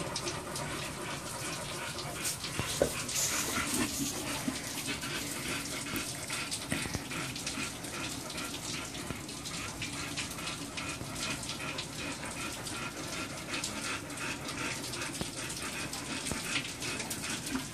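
Steady rain shower falling, a dense patter of drops hitting close by.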